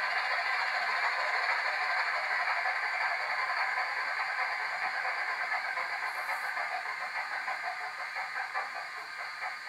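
Bachmann Class 25 model locomotive's DCC sound decoder playing a diesel engine sound through the model's small speaker, thin and with little bass. It fades slowly, and an even pulsing grows clearer over the last few seconds.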